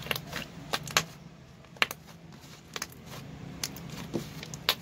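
Thick orange slime being squeezed and kneaded by hand, making a dozen or so sharp clicks and pops at irregular intervals, the loudest about a second and just under two seconds in.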